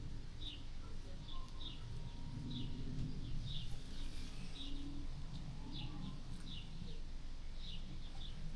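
A small bird chirping over and over: short, high chirps, each falling in pitch, about two a second, over a low murmur.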